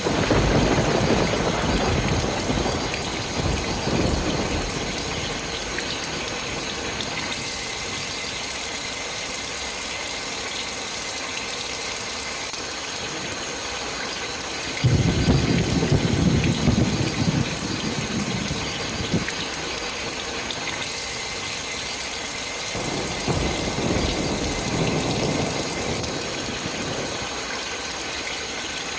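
Storm noise: a steady rain-like hiss with three spells of low rumbling, at the start, about 15 seconds in and about 23 seconds in.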